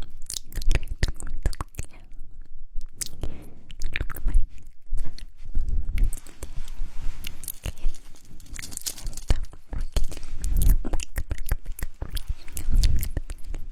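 Close-miked ASMR mouth sounds: a dense, irregular run of sharp lip and mouth clicks and smacks with soft low thumps.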